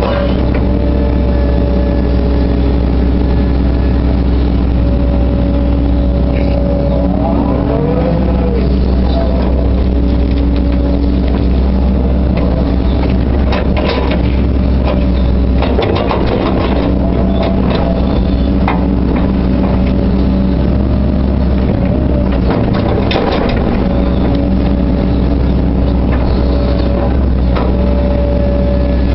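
Hitachi Zaxis 130LCN excavator running steadily at working revs, with a brief rising-and-falling whine about a quarter of the way in as it swings soil. Bursts of clattering knocks come near the middle and again about three quarters of the way through.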